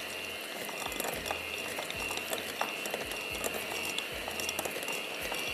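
Electric mixer beating butter in a bowl until creamy, its motor giving a steady whine with scattered clicks from the beaters.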